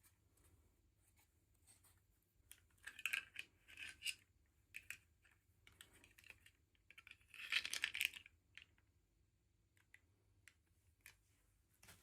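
Small plastic packaging being handled, crinkling and scratching in two short bursts about three and seven and a half seconds in, with scattered light clicks between.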